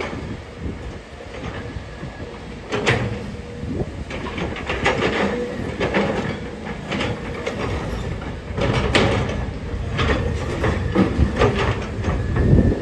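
Crawler excavator working: a low, steady diesel rumble with irregular heavy metal clanks and knocks, some ringing briefly.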